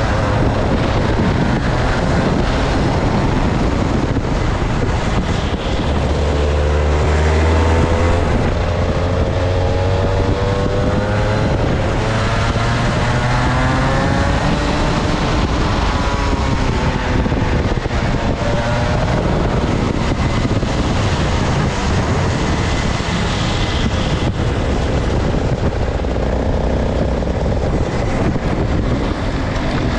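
Two-stroke kart engine running hard. Its pitch climbs steadily as it accelerates from about six seconds in, then drops back as the throttle comes off, and it keeps running at varying revs through the rest.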